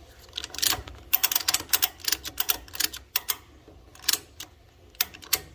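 Irregular run of sharp metal clicks and clinks as a boat buckle's mounting hardware is fitted and tightened on the trailer, thickest in the first half, then a few single clicks near the end.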